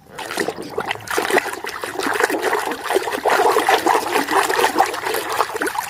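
Water trickling and splashing steadily as a muddy toy vehicle is washed.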